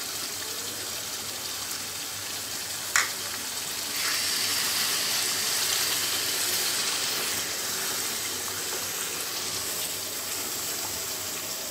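Thick mango pickle mixture sizzling and bubbling in a pan after white vinegar is added, stirred with a wooden spatula. A single knock comes about 3 seconds in, and the sizzle grows louder and hissier about a second later as it is stirred.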